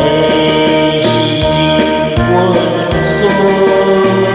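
A man singing a Taiwanese Hokkien ballad into a microphone over a karaoke backing track with a bass line and a steady beat.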